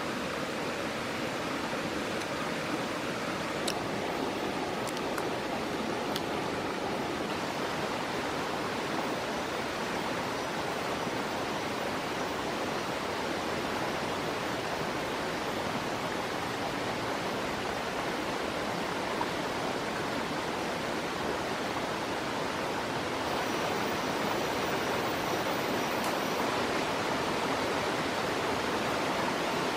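Steady rushing of a stream running over rocks, a little louder near the end.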